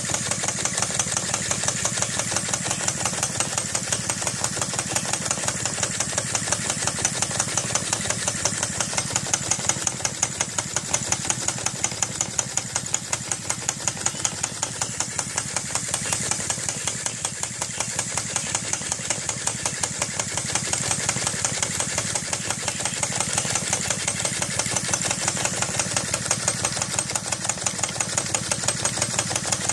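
Hand-made brass vacuum-operated model engine running steadily, its moving parts making a rapid, even ticking over a steady hiss.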